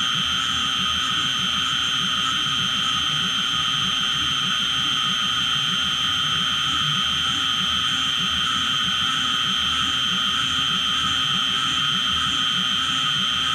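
CNC milling machine spindle running with a steady high whine while an end mill cuts a Delrin (acetal) block, with no pauses or changes in pitch.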